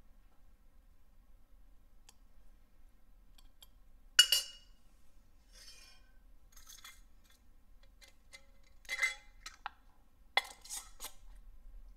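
Sharp clinks of metal on a glass mason jar: one loud knock of a steel ladle against the jar about four seconds in, then a few lighter clinks. Near the end, a quick run of clinks as a metal canning lid and screw band are set on the jar and twisted down.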